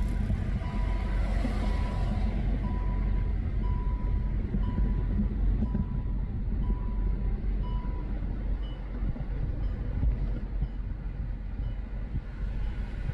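Road and engine rumble inside a moving car's cabin, with the car's electronic warning chime beeping about once a second until it stops about eight seconds in.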